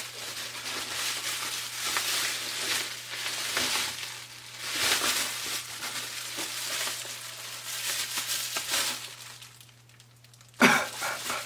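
Irregular rustling and crinkling of packaging being handled close to the microphone. It dies down briefly near the end and is followed by a sudden louder burst of noise.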